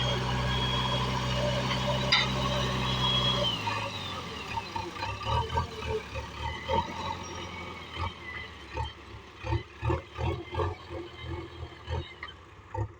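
Backhoe loader's diesel engine running steadily with a high thin whine over it, dropping away about three and a half seconds in; after that, a run of short, irregular knocks and clatters.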